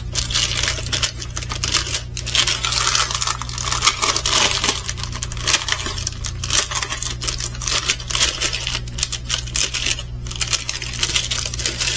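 Dense clicking, crinkling and rattling of plastic packaging and small parts being handled, over a steady low hum.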